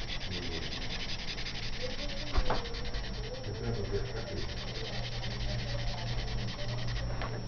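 Black marker scratching rapidly back and forth on paper as it fills in a solid black area, stopping near the end. A steady low hum runs underneath, and there is a single knock about two and a half seconds in.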